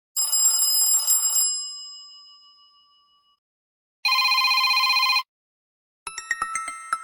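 Three short electronic phone alert sounds from the ZTE Kis II's stock sound set, one after another with silent gaps: a bright chime that rings out and fades over about two seconds, then a steady buzzy beep about a second long, then near the end a quick run of plinking notes.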